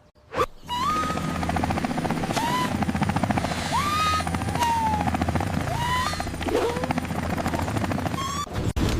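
Animated helicopter's rotor chopping in a fast, steady beat over a low hum, with several short rising and falling pitched tones laid over it. The sound stops about half a second before the end.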